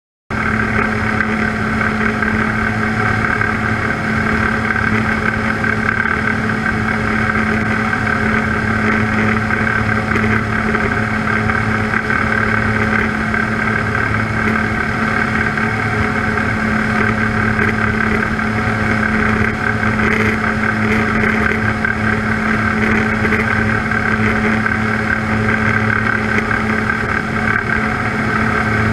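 Engine and propeller of an Avian Adventurer homebuilt light aircraft running steadily in flight, heard through a camera mounted on the outside of the airframe: a constant drone with a low hum and a higher whine over a rush of noise. It starts suddenly right at the beginning.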